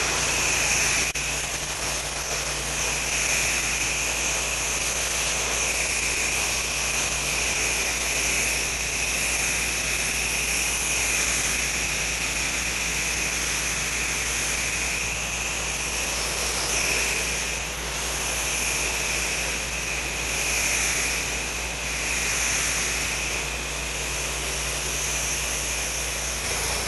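Steady hissing spray of a house-wash rig applying bleach-based (sodium hypochlorite) soap solution through a spray wand, with the rig's engine humming underneath. The spray rises and dips slightly as it sweeps but never stops.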